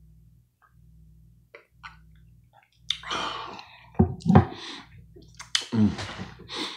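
Close-up mouth sounds of a man drinking and eating: small wet clicks and swallows, then about halfway through a loud breathy exhale and short low throat sounds.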